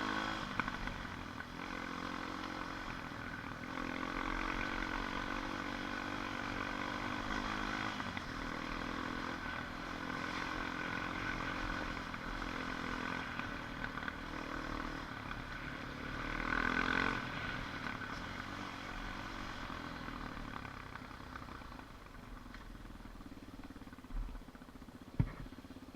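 ATV engine running while riding, its note coming and going with the throttle and swelling briefly about two-thirds of the way through. It quietens in the last few seconds, where a sharp knock sounds.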